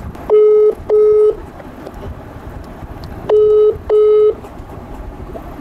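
Ringback tone of an outgoing phone call, played through the phone's speaker: a double beep at one steady pitch, repeated about three seconds later, while the call rings unanswered.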